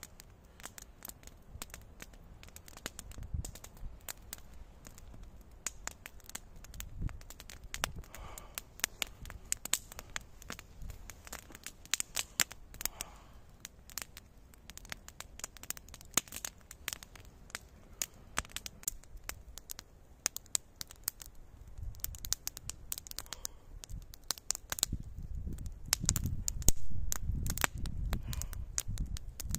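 Wood fire crackling, with irregular sharp pops and snaps; a low rumbling swells in over the last few seconds and becomes the loudest sound.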